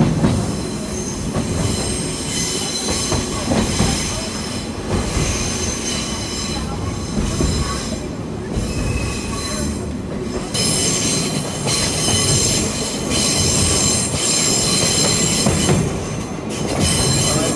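Sagano sightseeing trolley train running on the rails, with a steady low rumble of the wheels and high, steady squealing from the wheels on the curving track, loudest in the second half.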